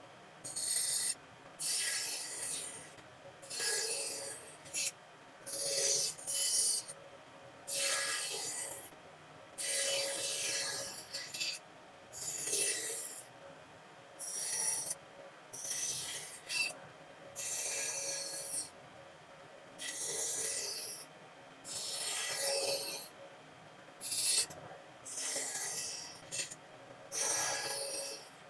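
Hand-worked abrasive strokes on wood, a rasp or sandpaper scraping back and forth in a steady rhythm of about one stroke every second and a half, each a short hissing scrape.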